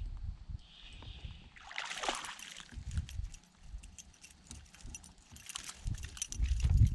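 A hooked chain pickerel splashing at the surface beside a kayak, one burst about two seconds in, followed by scattered clicks. A low rumble grows loud near the end.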